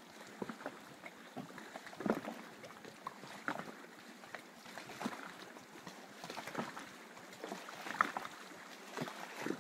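Small lake waves lapping and splashing in the shallows, with soft irregular splashes about once a second.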